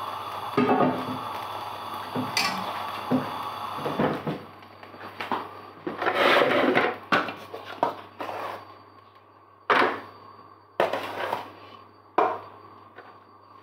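Kitchenware being handled on a countertop: a series of sharp knocks and clatters, the loudest a longer clatter about halfway through, over a steady low hiss that fades out about four seconds in.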